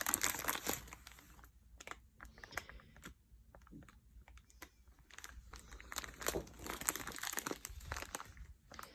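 Small plastic baggies of diamond painting drills being handled, crinkling, with scattered light clicks. The crinkling is strongest at the start and again in the second half.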